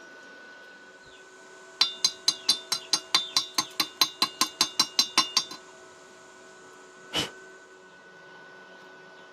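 Steel being struck repeatedly: about seventeen quick, ringing metallic taps at roughly five a second, then a single short knock about two seconds later, over a faint steady hum.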